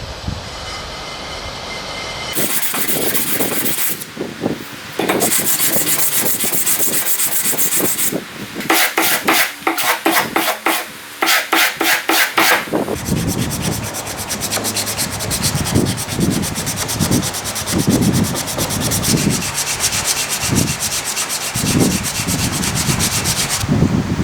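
Wood being worked by hand with abrasive strokes, sanding and rasp-like scraping, in several separate takes. In the middle there is a run of quick, even back-and-forth strokes, about three a second.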